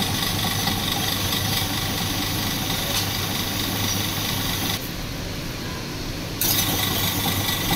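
Electric ice-shaving machine running, its blade shaving a block of ice into fine snow ice: a steady motor hum with a grinding rasp, which turns quieter and duller for about a second and a half around five seconds in.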